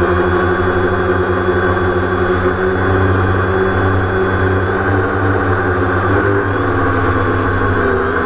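DJI Phantom quadcopter's electric motors and propellers buzzing steadily, picked up close by the GoPro mounted on its body. The pitch of the hum wavers slightly near the end as the motors adjust their speed.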